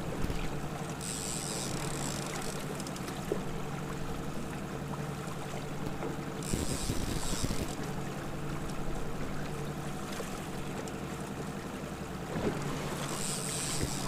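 Boat's outboard motor running steadily at trolling speed, with wind and water around the hull. Three short high-pitched hissing bursts come about a second in, around the middle, and near the end.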